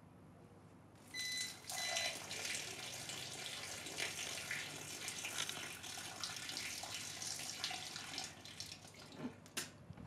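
Water poured onto a plugged-in power strip, splashing and running on stone paving. It starts about a second in, runs steadily for about eight seconds, then trails off into a few drips and clicks.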